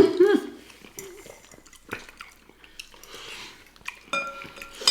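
Eating sounds: chewing with a spoon clicking against a bowl, and near the end a sharp ringing clink of the spoon on the dish.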